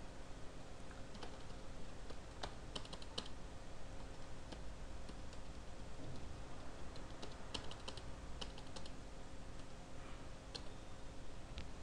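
Computer keyboard typing in uneven bursts: a quick run of keystrokes about a quarter of the way in and another about two-thirds through, with single keystrokes in between.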